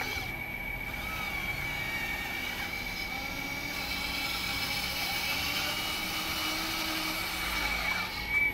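Hydraulic system of a 1/14-scale CAT 330F RC excavator running as the boom and bucket move: a steady high whine, with other tones that bend up and down as the machine works.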